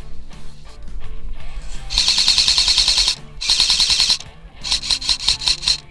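Background music with a steady bass line, over which an airsoft rifle fires three rapid bursts of full-auto shots, about two, three and a half and almost five seconds in.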